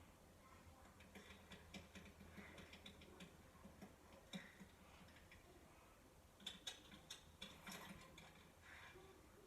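Near silence with faint, scattered small clicks and ticks, several of them bunched together about two-thirds of the way through.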